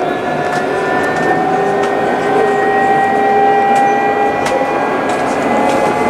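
Electric tram running on grassed track, heard from inside at the front: a steady whine from the traction motors creeps slowly up in pitch as it gathers speed, over a bed of rolling noise with a few faint clicks.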